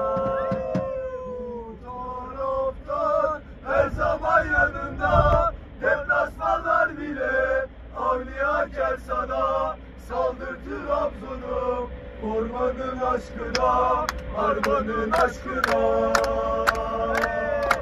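Men's voices singing a chant-like song in held, wavering notes, with sharp percussive clicks that come thicker near the end, over a steady low rumble of a moving vehicle.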